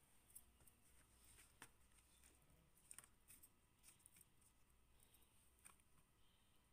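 Near silence, with faint scattered clicks and rustles from hands dredging chicken wings in dry flour in a plastic tub.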